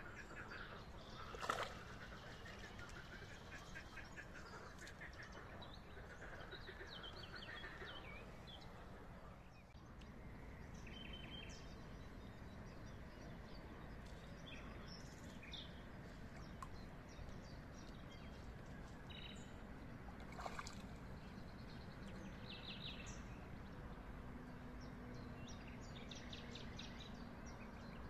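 Faint birdsong: scattered short chirps and trills over a steady low outdoor background, with a sharp brief knock or splash about a second and a half in and another about twenty seconds in.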